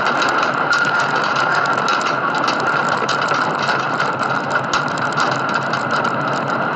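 A high-rise building shaking in an earthquake: rapid, irregular rattling and clicking over a steady rushing noise.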